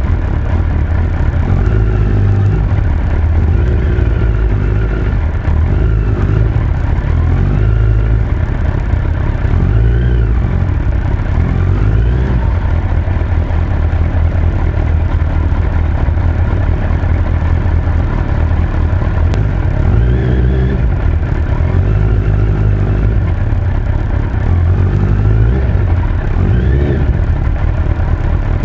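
Suzuki Hayabusa inline-four motorcycle engine running under way, its pitch rising and falling several times with throttle and gear changes over a heavy low rumble.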